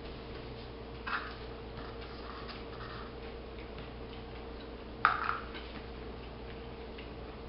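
Small paper cups being picked up and set back down on a wooden table: a light tap about a second in and a sharper tap with a couple of smaller knocks about five seconds in, over a steady low room hum.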